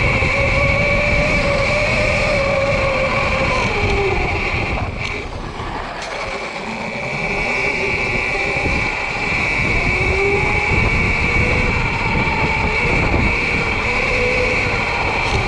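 Sur-Ron electric dirt bike's motor whining under way, its pitch rising and falling with speed, over a steady higher whine and a low rumble of wind and ground noise. It eases off briefly about five seconds in, then picks up again.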